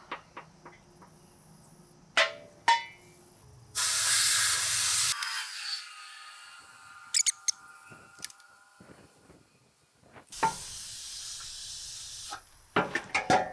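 Compressed air hissing out of a homemade oil pre-lube tank, a pressure tank with a rubber bladder, as the air pressure left in it is released. It comes in two bursts, about 4 s in and about 10 s in, with a few sharp metal knocks from handling the tank.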